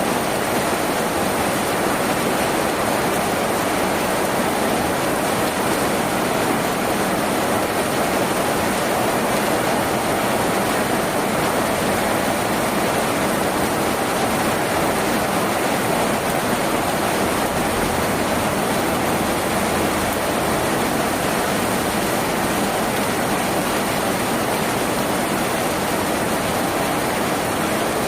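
Steady heavy rain on a tin roof: a dense, even rushing noise that holds constant throughout.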